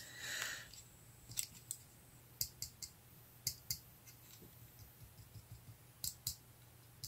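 Artisan Cutlery Ahab folding knife being worked open and shut in the hands, its blade giving sharp metallic clicks in small groups. Between them comes a run of faint, light ticks as the knife is shaken: a loose pocket clip rattling.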